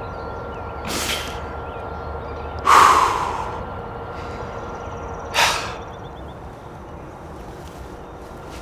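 A man breathing hard in excitement, with three heavy, sharp exhales about two seconds apart, the middle one the loudest.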